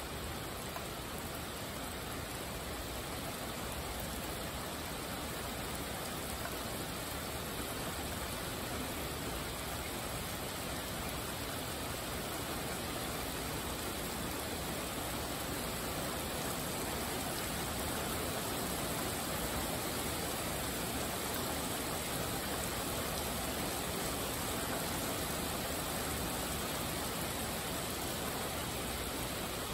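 Steady rainfall, an even hiss of many drops with no single drops or gusts standing out.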